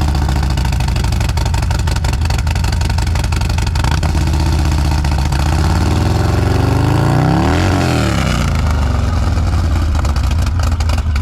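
Harley-Davidson V-twin through an aftermarket Trask exhaust, idling just after start-up. About six seconds in it revs once, rising and falling back to idle within about two and a half seconds.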